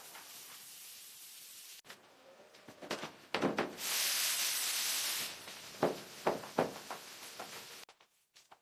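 A steady hiss. After a cut come a few knocks, then a loud hiss lasting about a second and a half, then several more sharp knocks.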